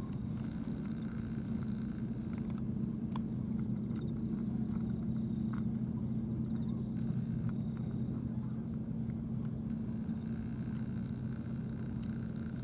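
An engine idling nearby with a steady low hum. A few faint short clicks are heard over it.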